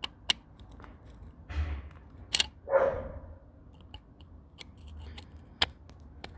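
Scattered light clicks, taps and a brief rustle of hand work in the engine bay, with one short voice-like call about three seconds in.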